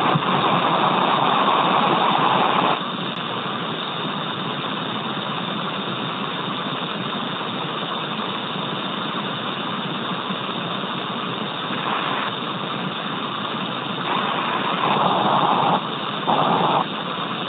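Steady hiss of an open radio channel on a spacecraft's air-to-ground communication loop. The hiss is louder for the first few seconds and again in short stretches near the end.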